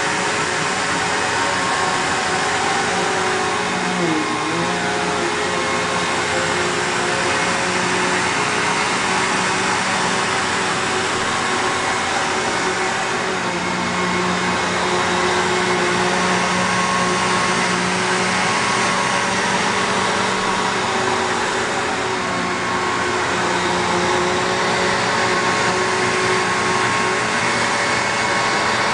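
Bissell PowerGlide Platinum (3545-2) upright vacuum cleaner running steadily, its motor and airflow making a constant whir, with a brief dip in pitch about four seconds in.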